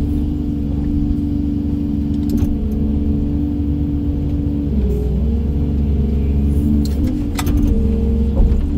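Excavator's diesel engine and hydraulic pump running with a steady hum and whine, heard from inside the cab; the whine shifts in pitch about halfway through and again near the end as the boom and demolition grapple are moved. A few light rattles come about two seconds in and again near the end.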